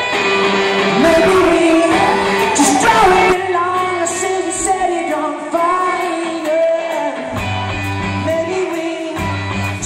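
Live rock band playing through the venue PA, a male singer singing over electric guitars, keyboard and drums. About three seconds in the drums and low end drop away, leaving voice and guitars, and low bass notes come back in near the end.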